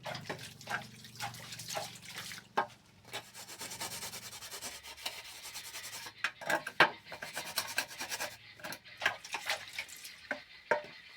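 Household rubbing and scraping sounds with many short, light knocks and clicks throughout, busier in the second half.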